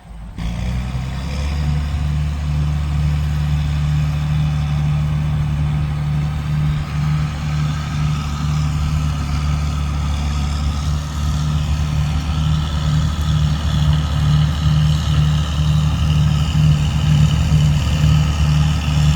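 John Deere 7720 combine's diesel engine running steadily with a fluttering low drone. A fainter higher whine comes up over it from a little past the middle.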